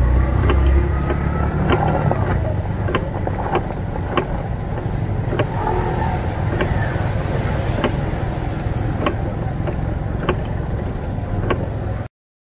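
Four-stroke Bajaj auto rickshaw engine running while driving through rain on a waterlogged road, tyres hissing through standing water, with scattered sharp ticks throughout. The sound cuts off abruptly near the end.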